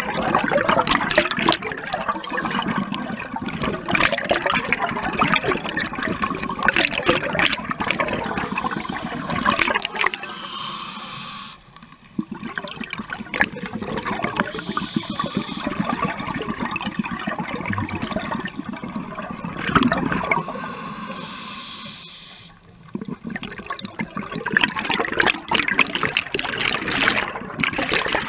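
Scuba regulator breathing heard underwater: long stretches of gurgling exhaust bubbles, broken by short quieter gaps about twelve and twenty-two seconds in.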